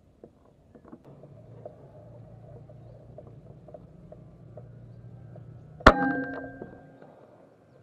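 A single air rifle shot about six seconds in: a sharp crack followed by a metallic ring that dies away within about a second. A faint steady low hum runs beneath it before the shot.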